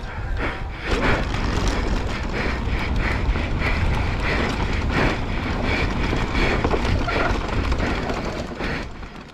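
Wind rushing over the camera microphone on a downhill mountain bike, with the tyres running over a dry, dusty dirt track and a few knocks as the bike hits bumps. The sound fades out near the end.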